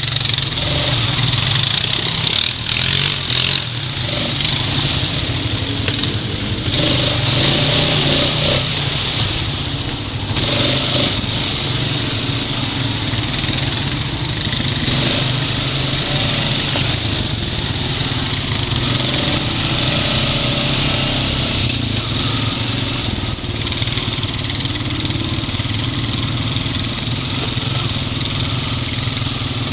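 Honda Rancher 420 ATV's single-cylinder four-stroke engine running steadily as the quad is ridden along a muddy trail.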